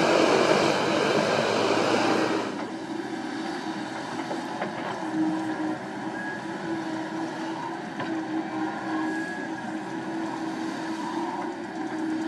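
Komatsu PC78US mini excavator's diesel engine running steadily as it digs soil, with a constant hum. It is louder for about the first two and a half seconds, then suddenly drops to a quieter level.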